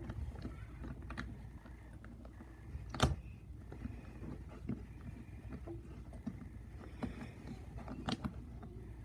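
Small plastic clicks and knocks from a megaminx being handled while its last piece is pushed toward its slot without seating. There is one sharper click about three seconds in and a couple more near the end, over a low rumble.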